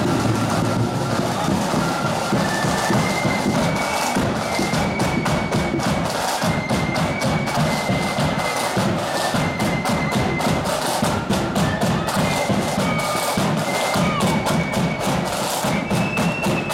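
Marching flute band playing a tune: a high, shrill flute melody over snare drums and a bass drum beat.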